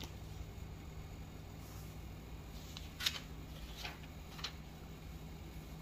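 A few soft clicks and rustles of a paper notebook being picked up and handled, about three seconds in and twice more over the next second and a half, over a faint steady low hum.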